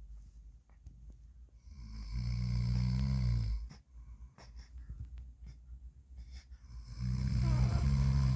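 An adult man snoring in his sleep: two long, low snores about five seconds apart.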